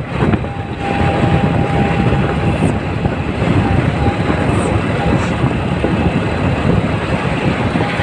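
Motorcycle engine running while riding along at road speed, mixed with wind and road noise. It gets louder about a second in, then holds steady, with a thin steady whine running through it.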